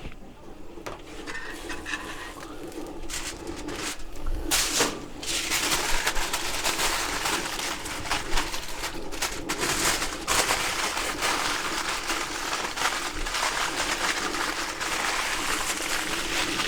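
Aluminum foil crinkling and crackling as patty melts are wrapped on a hot flat-top griddle, over a steady sizzle. It grows louder about five seconds in.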